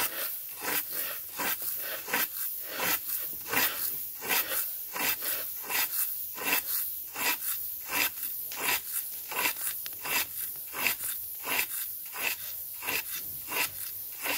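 Long-handled rake dragged through a thick layer of drying paddy grain, making a rustling, crunching scrape with each stroke, about two strokes a second.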